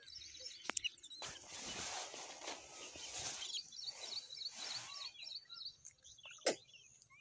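Small birds chirping repeatedly in short high notes, over a stretch of rustling noise in the first half. A sharp click comes near the end.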